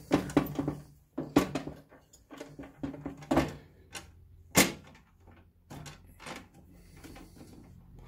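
Clicks and knocks of hard plastic being handled and pried at on a diesel air heater's control-box cover, several scattered sharp knocks with the loudest about halfway through.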